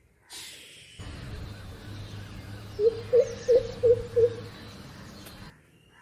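Greater coucal calling: a run of five deep, low hoots in quick succession, about three a second, over a steady background hiss.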